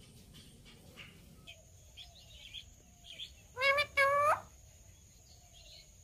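Ringneck parakeet calling: faint chirps, then two loud, ringing calls in quick succession about three and a half seconds in, each bending upward at the end.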